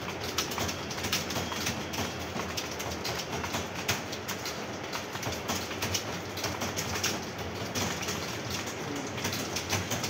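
Many computer keyboards typed on at once: a dense, steady clatter of key clicks.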